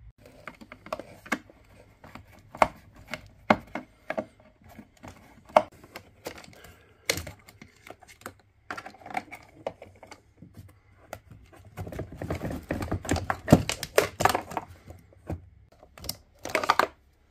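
Hard plastic clicking, knocking and rattling as a white plastic battery hold-down bracket and its wiring are worked loose from a kids' ride-on quad's battery compartment. Irregular quick clicks throughout, busier and louder in the last few seconds.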